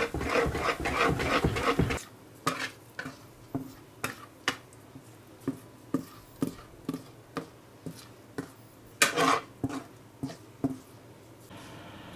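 Wire whisk beating batter against the sides of a bowl in fast strokes for about two seconds. Then come scattered light taps and scrapes of a utensil on the bowl and pan, about two a second, with one louder scrape near the end. A steady low hum starts just before the end.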